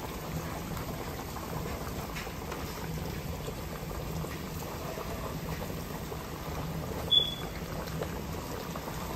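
Beef tips in a frying pan of gravy bubbling steadily on the stove while a wooden spoon stirs them; the gravy mix and added water are cooking down to thicken. A brief, sharp high-pitched chirp sounds about seven seconds in.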